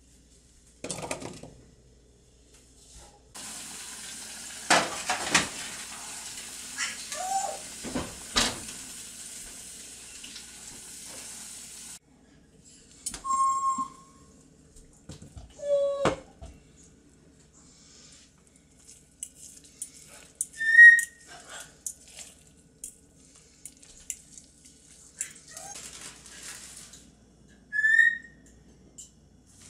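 Kitchen work sounds: a steady rushing hiss for about eight seconds with a few knocks over it, ending abruptly, then several short ringing clinks of cookware and dishes.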